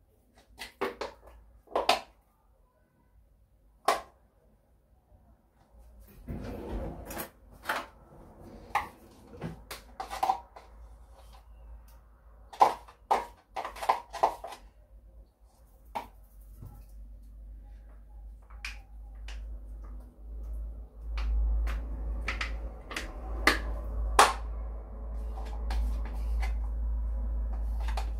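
Scattered clinks and knocks of kitchen utensils and containers being handled while preparing a topping in a bowl. The knocks come irregularly, thicker from about a quarter of the way in, with a low steady rumble underneath in the last third.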